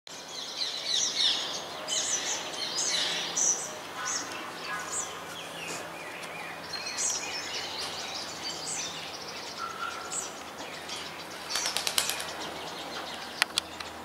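Small birds chirping and twittering in quick, high calls, busiest in the first half, with a few sharp clicks about two seconds before the end.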